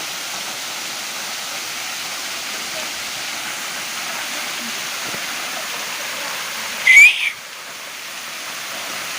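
Waterfall rushing as a steady hiss of falling water. About seven seconds in there is a brief, loud, high-pitched whistle-like squeal, after which the rush drops for a moment and builds again.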